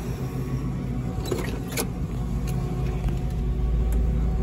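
1962 Chevrolet Impala's engine idling with a steady low rumble, with a few sharp clicks about a second and a half in.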